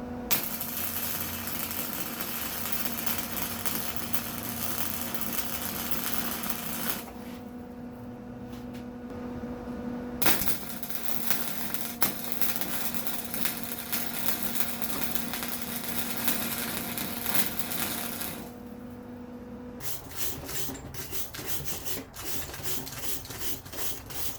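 Flux-core wire-feed welder laying beads to weld wheel studs back onto a go-kart drive hub: two long runs of dense crackling and spatter over the machine's steady hum. The hum stops near the end, followed by a quick series of scraping strokes.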